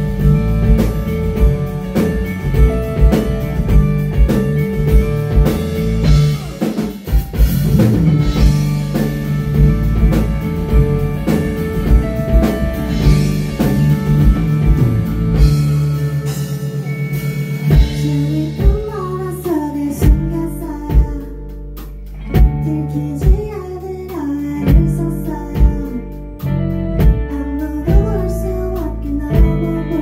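Live band music: keyboard, guitar and drums play a song's intro with regular drum hits, and a woman's singing voice comes in a little past halfway.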